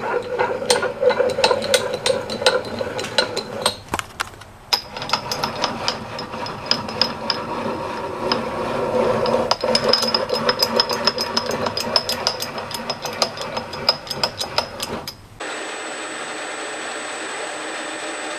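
Cast-iron XY cross-slide table being cranked by hand: its steel leadscrew and slides rattle, click and scrape, with faint metallic ringing. After about fifteen seconds the sound cuts to a steady hiss with a thin high whine.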